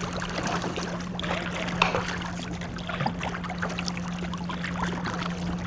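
Canoe paddles dipping and splashing in choppy river water, with water sloshing and trickling along the canoe, over a steady low hum.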